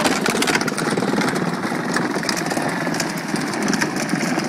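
Ride-on toy Ford pickup truck driving over concrete: its hard plastic wheels and drive motor make a steady, rough rattle full of small clicks.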